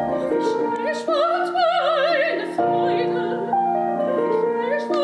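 A high female opera voice singing with wide vibrato over sustained accompaniment. The voice enters about a second in, above held chords that change in steps.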